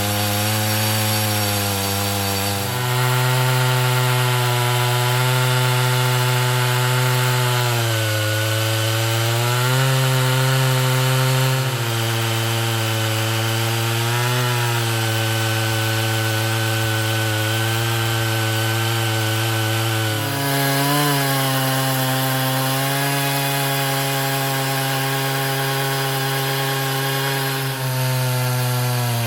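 Chainsaw running steadily under load as it cuts through wood, its engine pitch stepping up and down slightly every few seconds as the load changes.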